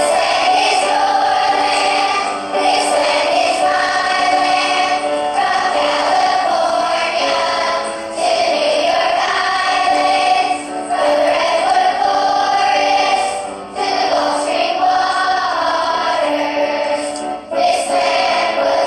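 Music with choir-like singing: long held notes in phrases a few seconds each, with short breaks between them.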